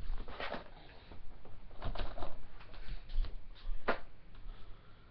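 Scattered knocks, taps and clothing rustles of a person moving about close to the microphone, with one sharp knock about four seconds in.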